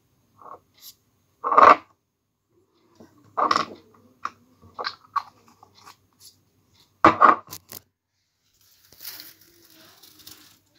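Close handling noises: a few short, loud scratchy rustles with small clicks between them, the loudest about a second and a half in, three and a half seconds in, and around seven seconds, then a softer rubbing hiss near the end.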